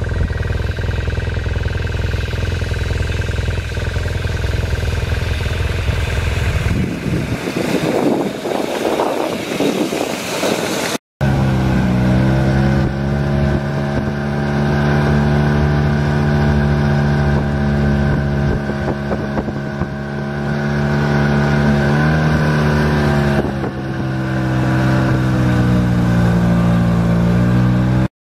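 Arctic Cat ZR 120 youth snowmobile, converted from chain to cogged-belt drive, running under way with a steady small-engine note. A stretch of rushing noise comes before a short break about eleven seconds in, after which the engine note is strong and close, dipping and lifting a little with the throttle.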